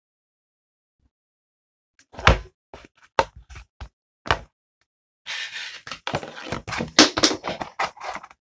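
Close handling noise from things being moved on a tabletop: a few separate knocks, then from about five seconds in a busy run of clicks, taps and rustling.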